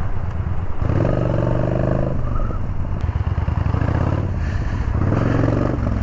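Yamaha Bolt's air-cooled V-twin running under way, pulling harder for about a second and a half shortly after the start and again for about a second near the end.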